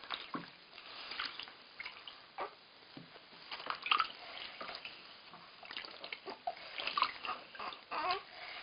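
Bathwater splashing and trickling in a plastic baby bathtub as a hand scoops and pours water over a newborn, in small irregular splashes and drips.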